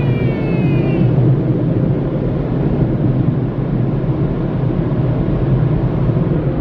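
Automatic tunnel car wash working over the car, heard from inside the cabin: a steady, loud low rumble of machinery and water. A thin high whine slides slowly down in pitch and fades out about a second in.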